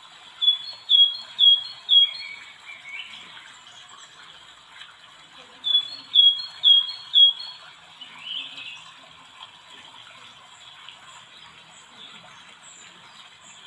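A bird calling: a run of four short, high, falling chirps about half a second apart, repeated a few seconds later, each run followed by a lower call, over a steady faint hiss.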